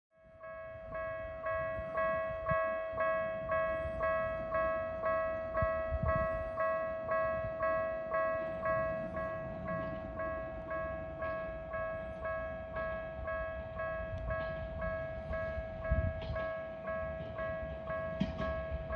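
Railway level-crossing warning bell starting up and ringing steadily, an even two-tone clang about twice a second, warning that a train is approaching.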